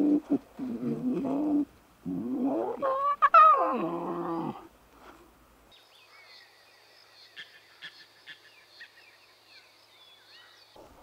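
Lion cubs calling: a run of loud, pitched moaning and growling calls that bend up and down, stopping about five seconds in. Then faint high chirps over a steady high whine.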